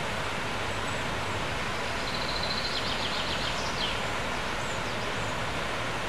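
The River Llugwy running over rocky shallows, a steady rush of water. A small bird sings a short, high trill about two seconds in.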